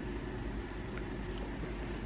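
Steady low background rumble, with a few faint clicks of a French bulldog puppy's teeth gnawing at a beaded bracelet on a wrist.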